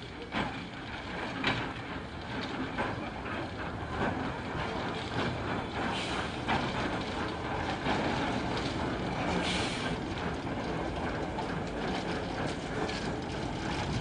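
Railway locomotive moving slowly in the shed yard, its running gear clanking and knocking irregularly, with a brief hiss about ten seconds in.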